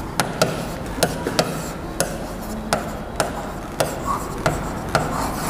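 Marker writing on a board: the tip taps sharply against the surface at the start of each stroke, about two taps a second, with faint scraping as it is drawn along.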